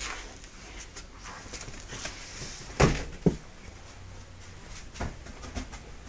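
Boxer dog moving about on carpet with a plush toy: soft scuffling and scattered light clicks, and two loud thumps about half a second apart near the middle.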